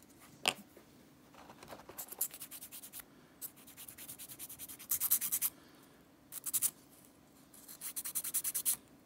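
Small wooden crankbait lure body being sanded by hand with a nail file: quick back-and-forth scraping strokes, about eight a second, in short runs with pauses between them.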